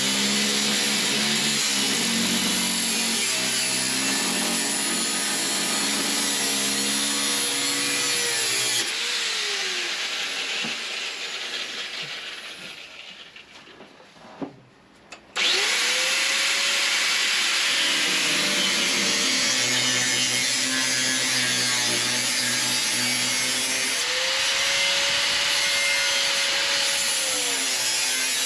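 Angle grinder with a cutoff wheel cutting through the Jeep TJ's rusted rear-corner sheet metal, its motor pitch sagging and recovering under load. About nine seconds in it winds down to near silence over several seconds, with a couple of clicks. It starts again abruptly about halfway through and keeps cutting.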